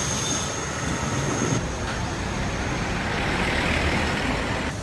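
Steady road traffic noise in a town street. A higher hiss swells in the second half and stops just before the end.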